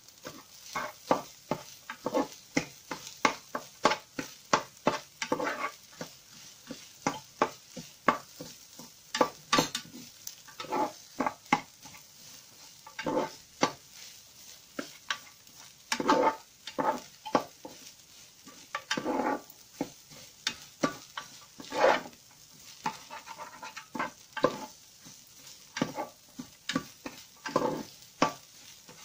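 Spatula stirring and turning fried rice in a frying pan, scraping and knocking against the pan in quick repeated strokes, about two or three a second, over a faint sizzle.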